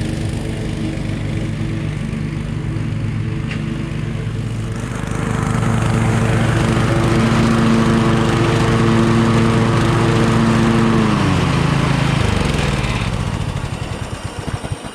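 Riding lawn mower engine of a 2003 MTD Yard Machine 13.5 HP running steadily. It gets louder about five seconds in, then winds down near the end, its pitch falling as it shuts off.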